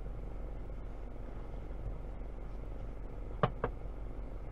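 A car's engine idling, a steady low hum heard from inside the cabin through the dashcam's microphone. Two short sharp taps, a quarter second apart, come about three and a half seconds in.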